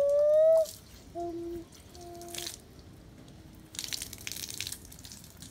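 Rainwater dripping and splashing on wet concrete, with a brief patch of louder splashing about four seconds in. Over it, three or four short whistle-like tones in the first two and a half seconds, the first one loudest and rising slightly.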